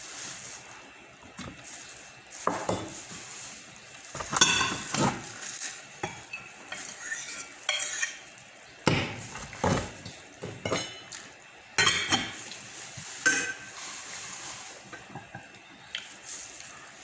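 Cutlery clinking and scraping against a dish during a meal: irregular short clinks and scrapes, a few louder ones about four and twelve seconds in.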